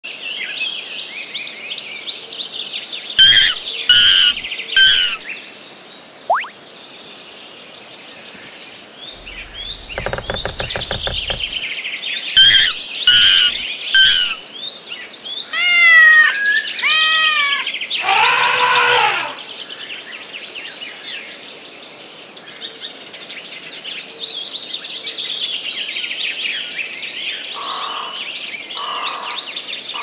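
Birds chirping and singing throughout, with other animal calls over them: a cluster of three sharp calls twice, about 3 and 12 seconds in, a low buzzing stretch around 10 seconds, and a run of arching, falling cries around 16 to 19 seconds.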